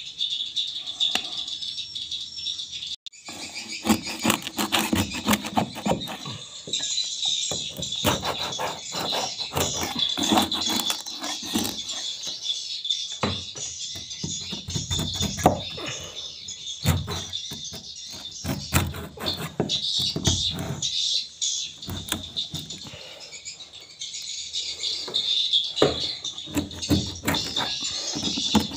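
Steady high twittering of swiftlets, with many sharp scrapes and knocks from about three seconds in, typical of nests being pried loose.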